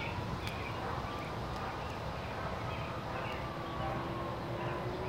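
Small birds chirping in short, scattered calls over a steady low rumble of background traffic; a faint low steady drone, like an engine, comes in about halfway through and grows slightly stronger.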